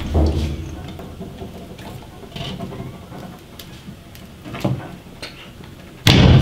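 Pipe wrench straining on a seized, corroded washer-hose connector at a hose-bib valve: scattered clicks and knocks of the wrench jaws and fitting under load, with a loud knock near the end.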